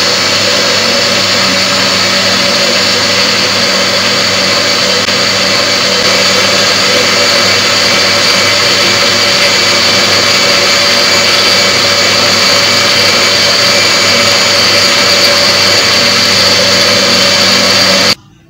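Electric juicer-blender motor running steadily under load, blending cream into a mango and milk mixture; it cuts off suddenly near the end.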